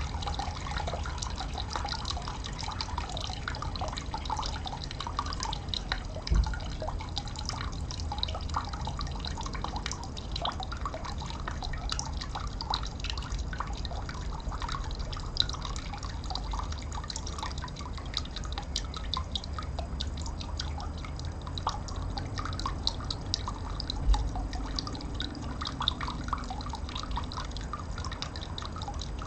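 Water dripping and trickling steadily, many small drips one after another over a low rumble, with two brief low thumps, one about six seconds in and one near twenty-four seconds.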